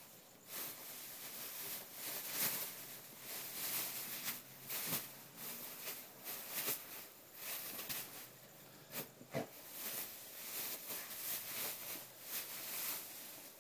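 Bean bag rustling in irregular bursts as a dog shifts and digs about on it.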